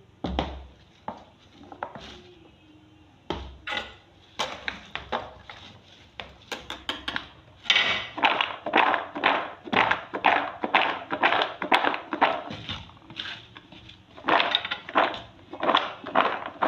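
Flour-dusted peanuts rattling and knocking in a bowl as they are tossed to coat them: a few scattered knocks at first, then a steady run of about three or four knocks a second from about halfway, with a short pause near the end.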